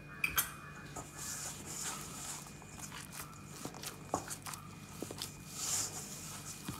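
Hands kneading soft, oiled maida dough in a stainless steel bowl: soft squishing and pressing of the dough with light knocks of hand and dough against the bowl, and a sharper knock near the start.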